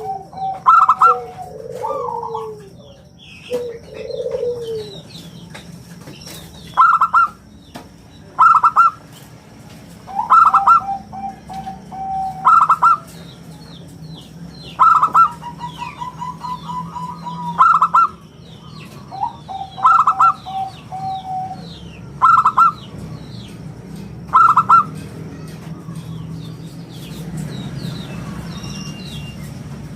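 Zebra dove (perkutut) cooing in repeated phrases about every two seconds: a sharp, clear note, often followed by a rapid stuttering run of lower notes. Faint chirping of small birds runs underneath.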